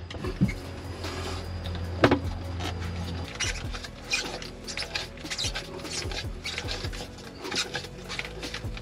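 Hard plastic live well pump fitting scraping and clicking as it is twisted and pulled up out of its seat by hand, with a sharp knock about two seconds in and a run of quick scrapes and clicks in the second half. A low steady hum stops about three seconds in.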